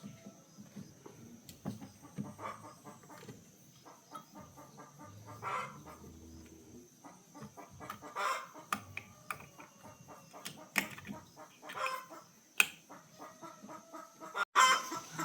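Chickens clucking now and then, amid scattered sharp clicks and knocks and a faint steady high whine.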